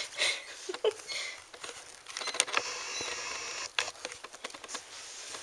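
Close rustling and scratching against the camera, with a few sharp clicks and a steadier rustle for about a second and a half in the middle: a Ragdoll kitten caught in the camera strap, tugging and pawing at it right by the microphone.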